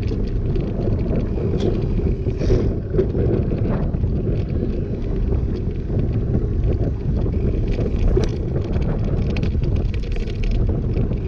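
Wind buffeting the microphone of a bike-mounted GoPro Hero 6 as a knobby-tyred bicycle rolls over asphalt, with a steady low rumble and many scattered small clicks and rattles.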